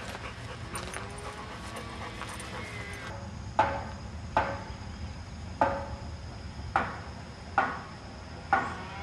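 A dog making short, sharp sounds about once a second, six in all, starting about three and a half seconds in.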